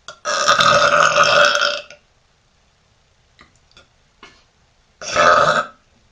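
A woman burping loudly twice while stuffing herself with food: one long burp of about a second and a half, then a shorter one about five seconds in. A few faint clicks fall between them.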